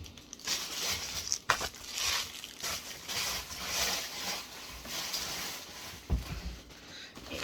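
Plastic packaging rustling and crinkling in waves as it is handled and thrown away, with a sharp click about one and a half seconds in and a low thump near the end.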